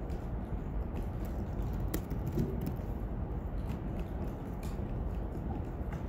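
Room tone of a press conference hall: a steady low rumble with a few faint, scattered clicks, the sharpest about two seconds in.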